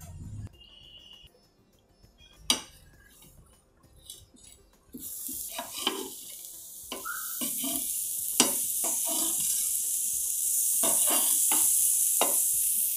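Mini dosas sizzling on a hot dosa griddle, a steady hiss that sets in suddenly about five seconds in. Scattered clinks and taps of a utensil against the pan.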